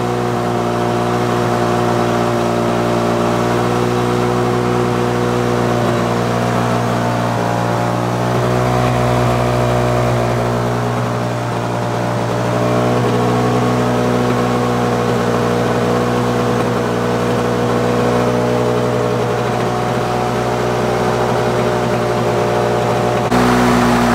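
Lawn-Boy 4651 mower's two-stroke engine running fast and steady at full throttle, its pitch wavering slightly. Near the end it turns slightly louder and brighter.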